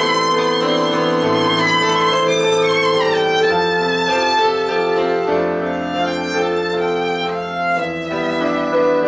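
Violin playing a melody with sliding notes, including a falling slide about three seconds in, over sustained chords from an electronic keyboard.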